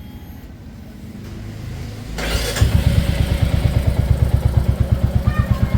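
Royal Enfield Classic single-cylinder engine starting about two seconds in with a short burst, then idling with an even, loud thump through the exhaust, about eight beats a second.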